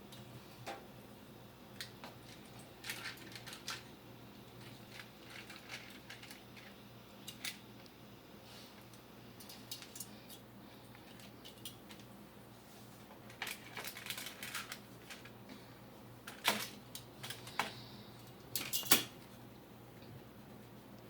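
Scattered light clicks and clinks of a kitchen utensil against a metal baking pan as baked chicken wings are turned over, coming in small clusters with the sharpest clinks near the end, over a faint steady low hum.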